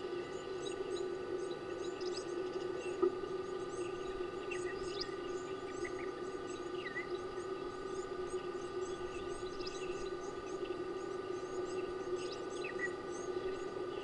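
Many small birds chirping and twittering in quick, high notes, with a few lower whistled calls, over a steady electrical hum. There is one sharp click about three seconds in.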